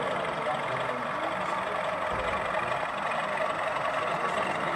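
Steady murmur of many people talking in a busy exhibition hall.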